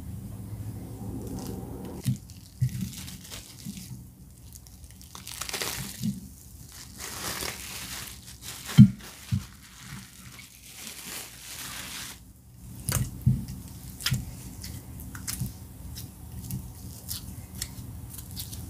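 Plastic wrap crinkling and tearing as it is peeled off a ball of fufu, followed by a run of small sharp clicks and taps from handling.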